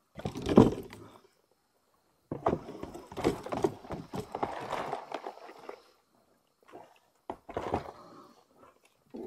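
Irregular knocks, thumps and rustling from gear being handled aboard a plastic fishing kayak, in several short clusters with quiet gaps, the loudest knock about half a second in.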